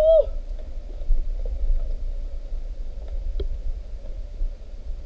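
Low rumble of wind buffeting and handling noise on a handheld action camera's microphone while walking down outdoor concrete stairs. A brief voiced sound comes right at the start, rising then falling in pitch, and there are a couple of faint taps.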